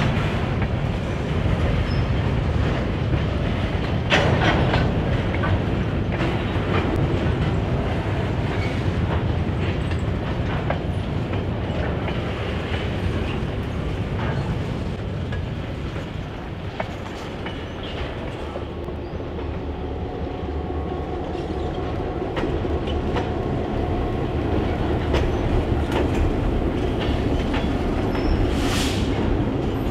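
Freight train of covered hopper cars rolling past, steel wheels clacking over the rail joints in a steady run of clicks over a continuous rumble. A short high hiss sounds near the end.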